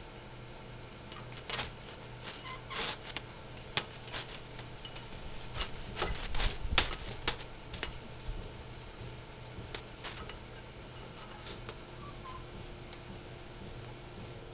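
Metal fork clinking and scraping against a ceramic bowl as a toddler stabs at avocado pieces. The clinks come in irregular spells, with a lull about two-thirds of the way through and a few more after it.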